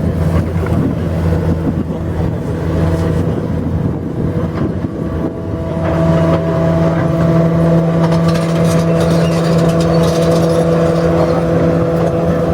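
Engine of a motor vehicle running steadily with a constant hum, growing louder about six seconds in.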